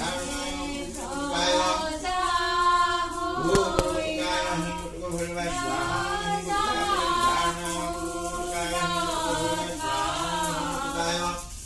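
Sanskrit puja mantras chanted in a sung, melodic recitation, the voice holding and bending long notes.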